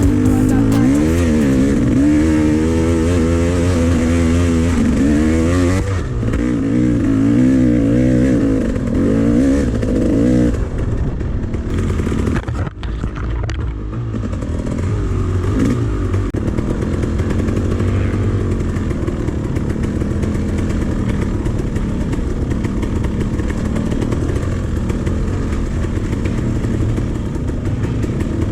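Dirt bike engine being ridden, revving up and down with its pitch climbing and falling again and again for about the first ten seconds, then running more evenly.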